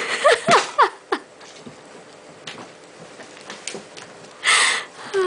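Kittens mewing: several short, quick calls in about the first second, then a short breathy burst a little after four seconds in.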